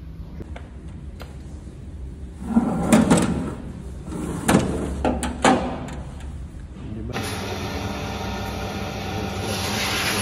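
Several heavy metal clunks and knocks as the crankshaft grinder is set up, the loudest in the middle. About seven seconds in, the crankshaft grinder starts and runs steadily, turning the crankshaft beside its grinding wheel for grinding the rod journals.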